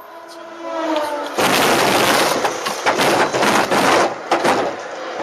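A train striking a vehicle: a sudden loud crash about a second and a half in, followed by about three seconds of dense crunching and clattering of wreckage that then dies down.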